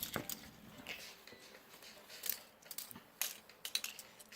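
Faint, scattered clicks and taps of plastic Lego-brick fidget spinners being handled and set spinning, about half a dozen in all.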